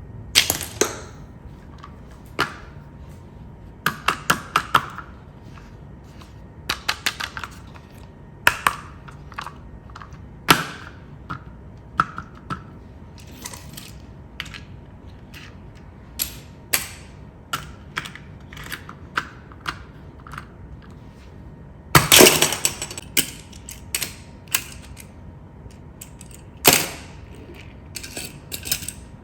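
Irregular clicks, knocks and clattering of small hard objects being handled, some in quick runs of three or four, with a longer rattling clatter about two-thirds of the way through.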